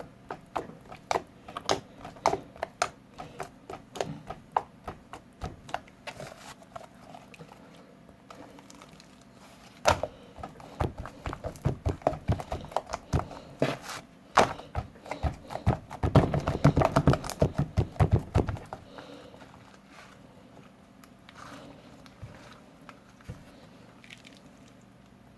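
Homemade slime being squeezed and poked by hand, giving a long run of small wet clicks and pops. The clicks come thickest and loudest about halfway through, then thin out.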